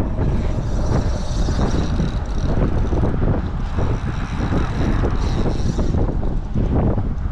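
Steady wind buffeting the microphone: a loud, rough rumble.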